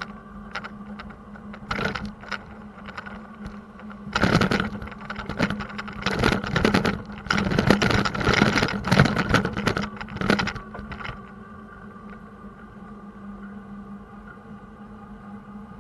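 A bicycle rattling and clattering over rough road surface for several seconds, starting about four seconds in, over a steady low hum.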